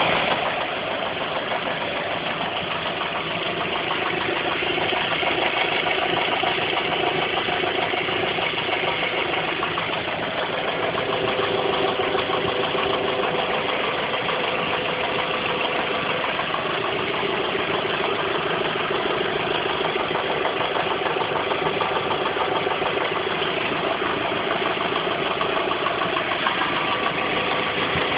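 Volkswagen Passat B5.5 (3BG) 1.8T turbocharged four-cylinder petrol engine running steadily at idle when warm, with an ominous diesel-like knocking clatter of unknown cause.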